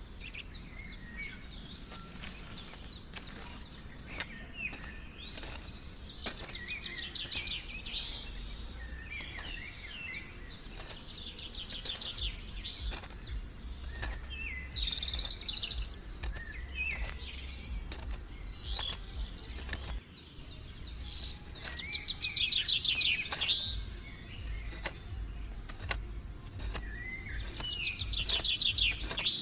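Small birds chirping, with repeated fast trills, over scattered light clicks and scrapes from a tiny metal hoe blade dragging through soil.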